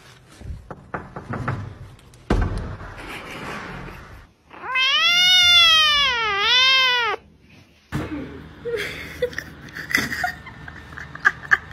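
Tabby kitten meowing: one long, loud mew a little under halfway in, its pitch dipping twice before it cuts off.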